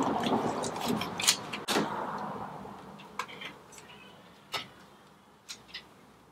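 A thin disposable glove rustling and crackling as it is pulled onto a hand, with sharp little snaps. It fades after about two seconds, leaving a few light clicks and taps as skewered grilled sausages are set down on a plate.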